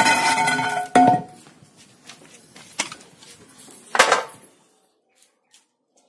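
Sheet metal rattling and scraping as a leaning sheet is pulled aside and dropped, ringing, with a sharp clang about a second in. A few sharper metal knocks follow, the loudest about four seconds in, as a snake hook strikes the remaining sheets.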